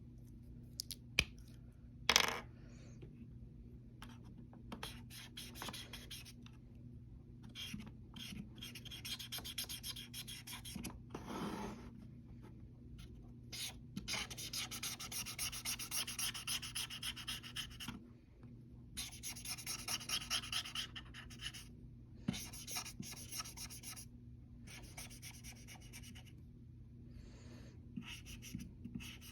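Repeated back-and-forth scraping strokes in runs of several seconds each, like hand-filing or rubbing on a part. A few sharp clicks come in the first couple of seconds, the loudest about two seconds in, over a faint steady low hum.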